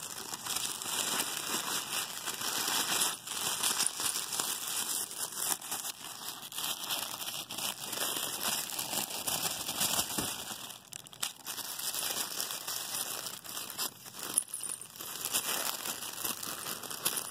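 Tissue paper crinkling and rustling continuously as it is handled and unwrapped, with a short lull about ten seconds in.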